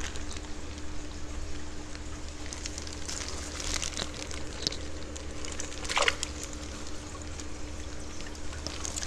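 Water trickling and splashing in a home aquarium, with a few brief splashes around the middle and a steady low hum underneath.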